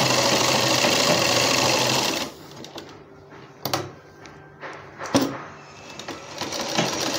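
Sewing machine running steadily as it stitches a double row of reinforcing stitches through the cloth, stopping abruptly about two seconds in. After it stops, quieter cloth handling with two sharp clicks.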